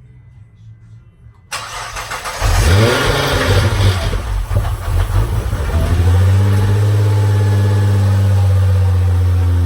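2013 Nissan GT-R's twin-turbo V6 starting for the first time after an accident rebuild: it comes in suddenly about a second and a half in, catches and flares up and back down, then settles into a steady idle.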